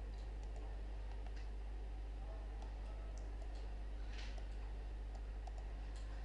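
A few scattered faint computer mouse clicks, the clearest about four seconds in, over a steady low electrical hum.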